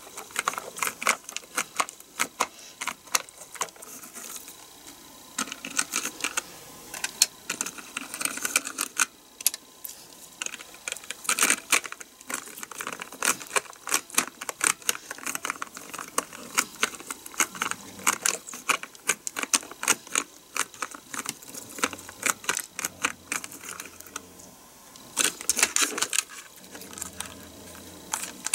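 Keys of a numeric keypad clicking and clattering in dense, irregular runs as a gel cleaner is pressed and worked over them, with a couple of brief lulls.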